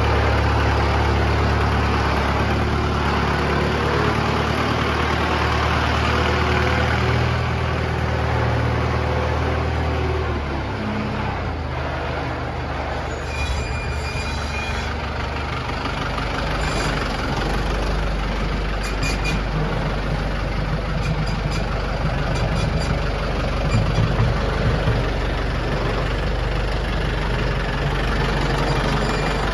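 Kubota tractor engine running steadily as the tractor drives with its front bucket. About ten seconds in, the engine note changes and settles lower, with a few light clicks later on.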